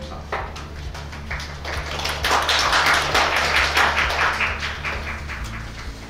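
Audience applauding. Scattered claps build to a full round about two seconds in, then thin out before the end.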